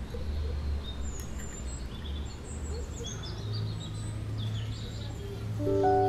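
Small birds chirping in short scattered calls over a steady low background hum. A few clear chime-like music notes come in near the end.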